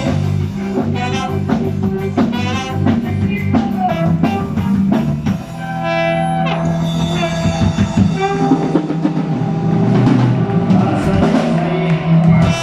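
Band music with drum kit, bass, guitar and brass playing without vocals, an instrumental stretch of a live regional Mexican group performance.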